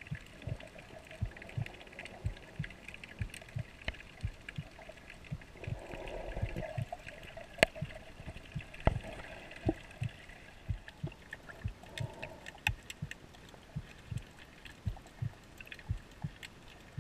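Underwater sound picked up by a snorkeler's camera: soft, low thuds about twice a second, with scattered sharp clicks and occasional muffled swells of water noise.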